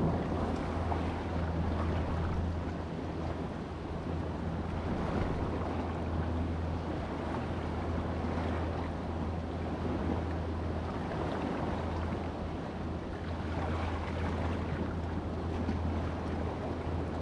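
Sea waves washing and wind buffeting the microphone, with a steady low hum underneath.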